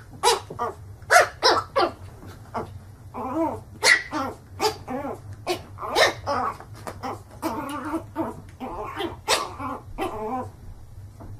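Small fluffy puppy barking over and over at its own reflection in a mirror: short, high yaps, one or two a second, that stop about a second before the end.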